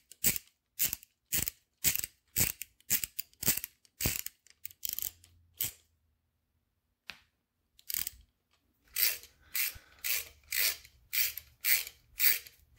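Socket ratchet clicking in quick repeated strokes, about two a second, as a 13 mm socket on an extension turns an oil-line fitting bolt on a Moto Guzzi cylinder head. The strokes pause for about two seconds past the middle, then resume.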